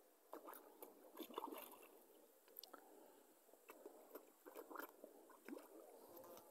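Faint, irregular small splashes, slurps and clicks of water at the surface, as carp take floating food in the shallows.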